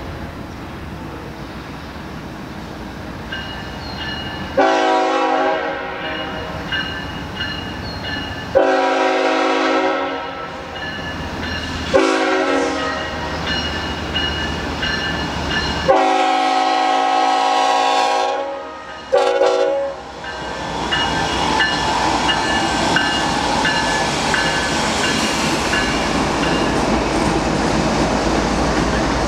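A freight locomotive's air horn blows the grade-crossing signal: two long blasts, a short one and a final long one. Under it the crossing's warning bells keep ringing. In the last third the train passes close by, a steady rumble with wheels clattering over the rails.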